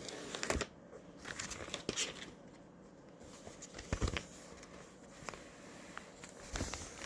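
Plastic vacuum-sealer bag material being handled, crinkling and rustling in short bursts, with a few sharp clicks and knocks.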